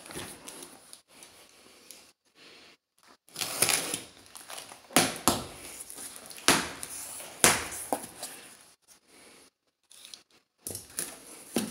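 Cardboard box being opened and its contents handled: irregular scraping and rustling of cardboard, with several sharp knocks.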